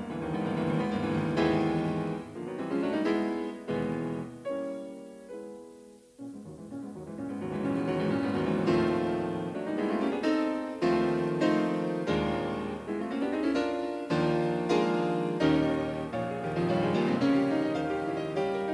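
Background piano music: single notes and chords struck one after another, each ringing and fading, with a brief lull about six seconds in.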